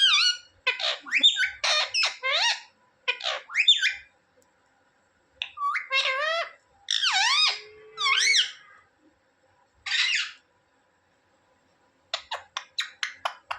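Indian ringneck parakeet calling: loud, high-pitched squawks that glide up and down in pitch, in bouts with short pauses, followed near the end by a quick run of about eight short chirps.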